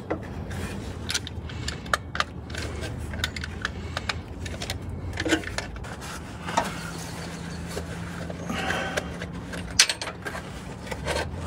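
Scattered metallic clicks and clinks of a wrench working on a nut welded onto a broken exhaust manifold stud, backing the stud out of the engine block, over a steady low hum.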